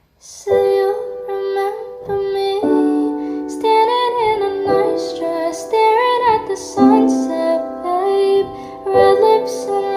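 Music: a gentle melody of held and gliding notes over changing chords, starting about half a second in after a brief silence.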